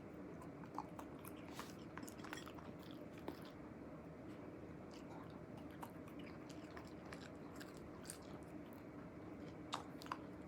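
Shiba Inu biting and chewing corn kernels: irregular small crunches and clicks, with two sharper ones near the end, over a faint steady room hum.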